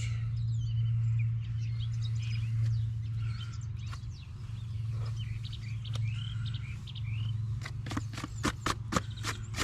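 Birds chirping over a steady low drone, with a quick run of clicks and knocks near the end.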